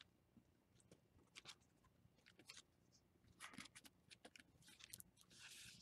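Faint rustling and soft ticks of stiff collaged paper pages being turned and fanned by hand, a little busier about three and a half seconds in, with a short rustle near the end.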